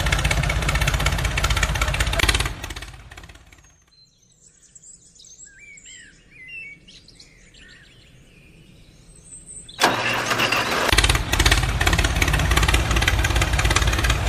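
Engine-like running noise for the mini tractor, fading out after about two and a half seconds. Then there are a few seconds of birds chirping. The engine noise starts again abruptly near ten seconds in and keeps running.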